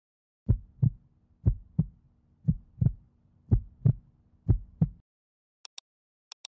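Heartbeat sound effect: five lub-dub double beats about one a second over a low steady hum, cutting off suddenly about five seconds in. Near the end come short paired clicks like a computer mouse double-clicking.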